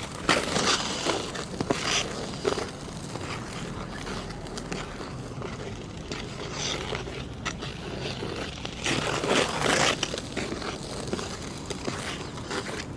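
Ice skate blades scraping and cutting across hard natural black ice in a run of hissing strokes, with the loudest strokes near the start and about nine to ten seconds in.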